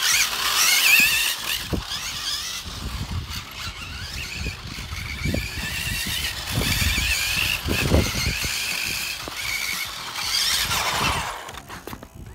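Kyosho Turbo Optima RC buggy running fast on asphalt: its brushless electric motor whines up and down in pitch with the throttle, along with tyre squeal from worn tyres sliding, and occasional low thumps. The whine rises and grows loudest near the end, then fades away.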